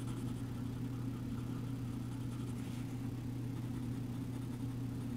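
Black coloring pencil rubbing softly on drawing paper, shading in small circles for a second layer of color. Underneath, a steady low hum.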